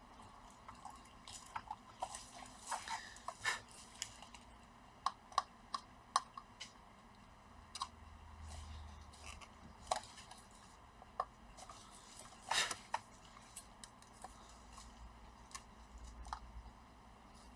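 Faint, irregular small clicks and taps of hand work on a laptop's plastic upper case as its plastic pins are melted down with a soldering iron to hold the keyboard; one tap about three-quarters of the way in is louder than the rest.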